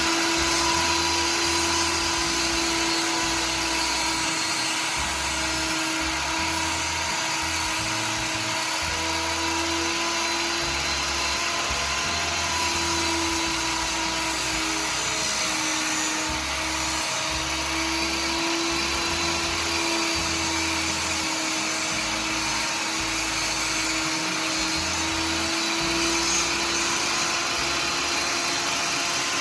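Electric power saw running continuously with a steady high motor whine. It dips slightly a few times as it bites into wooden blocks being notched, and winds down right at the end.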